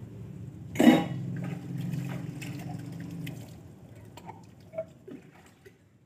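Dishes being washed by hand with water: water sloshing, one loud metallic clank about a second in, then scattered light clinks of steel utensils that fade out.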